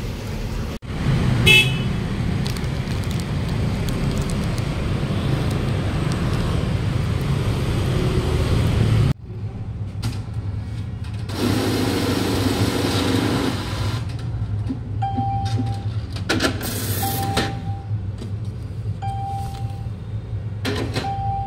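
Road traffic noise with a short car-horn toot about a second and a half in. After a cut, a bank ATM cash deposit machine hums steadily and gives short single beeps every second or two.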